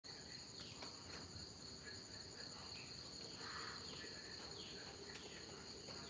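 Steady high-pitched insect chorus, several insects droning at once, with a few short downward-sliding bird chirps scattered over it.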